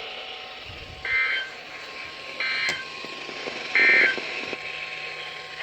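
Three short bursts of NOAA Weather Radio SAME digital data tones, a rapid two-tone screech, about a second and a half apart, over steady radio hiss.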